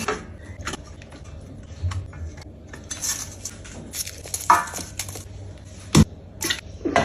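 Kitchenware being handled: dishes, pots and utensils clinking and knocking at irregular moments, with a few sharper knocks near the end.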